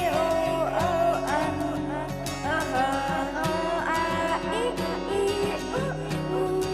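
Background music with a steady beat: a melody line that slides between notes over sustained bass notes.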